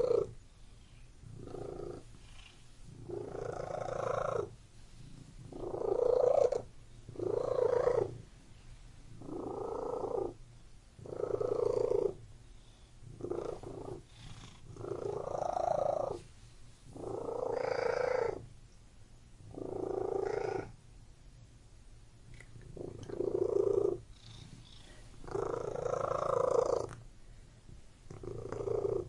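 Domestic cat purring close to the microphone, a steady low rumble that swells louder with each breath, about one swell every one and a half to two seconds.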